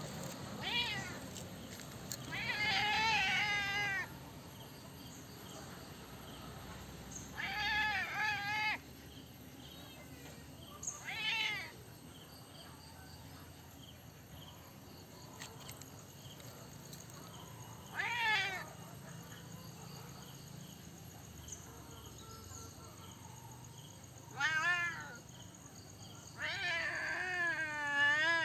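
Domestic cat meowing repeatedly, about seven calls spread out with pauses between. Some calls are short and some are long, drawn-out and wavering in pitch, the longest near the end.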